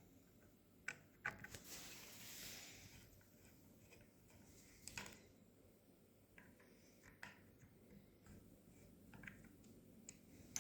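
Near silence broken by scattered faint clicks and light taps of a screwdriver and metal rifle parts being handled while the trigger guard is undone, with a soft brief hiss about two seconds in.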